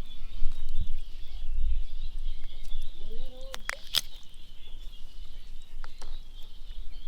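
Outdoor rural ambience: a steady high-pitched drone under a low rumble. About three seconds in there is a short rising-and-falling call, then a couple of sharp clicks.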